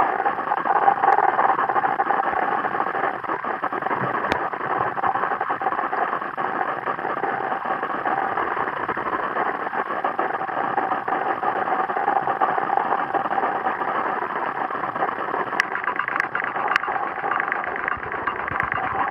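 A steady drone with a faint hum in it, heard through water, with a few faint clicks about four seconds in and a few more near the end.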